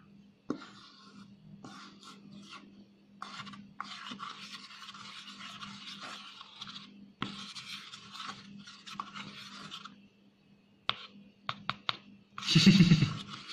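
Spatula stirring and scraping dental stone slurry around a rubber mixing bowl, in scraping strokes with short gaps and a brief pause about ten seconds in. A few clicks follow, then a brief louder thump near the end.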